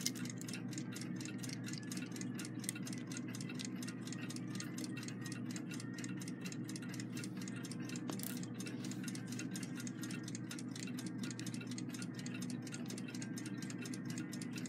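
Mechanical clock ticking quietly and steadily, about five ticks a second, over a steady low hum, with an occasional faint click of a screwdriver on the movement.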